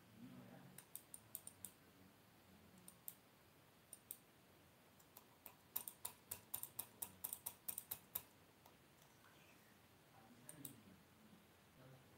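Light, sharp clicks over a quiet background. Scattered single clicks and pairs come in the first few seconds, then a quick run of about a dozen clicks, some six a second, from about six to eight seconds in, and a last pair near the end.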